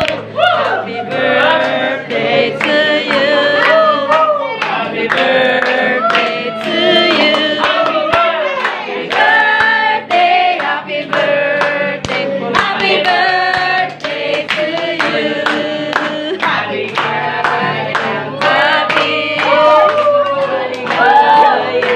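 Several voices singing a song together over an instrumental accompaniment with a steady bass and beat.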